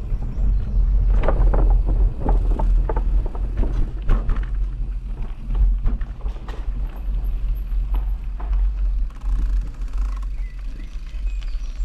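Wind rumbling on the microphone during a bicycle ride, with scattered clicks and rattles from the moving bike through the first seven seconds or so.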